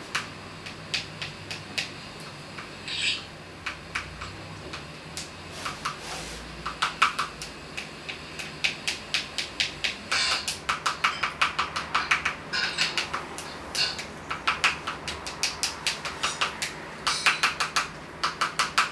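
A spoon clinking and scraping against a ceramic bowl as baby food, broccoli, is stirred. The taps are irregular and sparse at first, then come in quick runs of ringing clicks through the second half.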